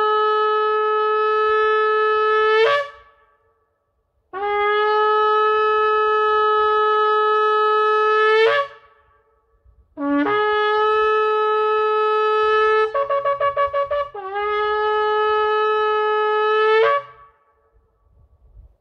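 Shofar (ram's horn) blown in three long blasts. The first is already sounding and ends about 3 s in; the next two follow after short pauses. The third is broken in the middle by about a second of rapid staccato notes before it carries on. Each blast holds one steady note and ends with a sharp upward flip in pitch.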